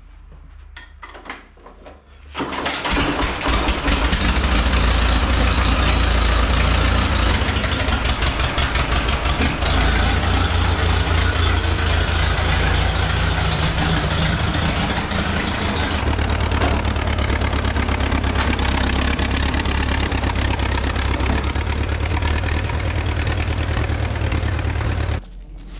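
1936 Farmall F-12 tractor's four-cylinder engine catching after hand-cranking about two seconds in, then running steadily with a rapid, even firing beat. The sound cuts off abruptly just before the end.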